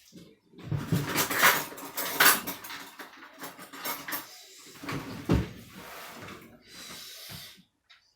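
Kitchen utensils and cookware clattering and knocking in irregular strokes, with the loudest knocks about a second and a half, two seconds and five seconds in, as food is handled and mixed.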